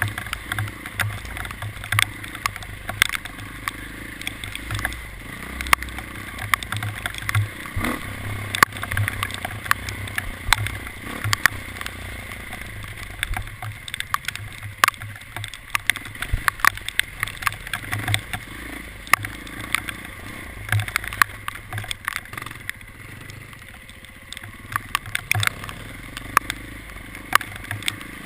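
A vehicle running, with a low pulsing engine note and many irregular sharp clicks and knocks throughout.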